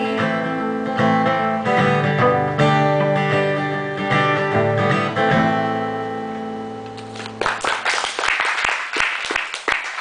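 Acoustic guitar strumming with a bowed cello through the closing bars of a song; the final chord rings and fades out. Applause breaks out about seven and a half seconds in.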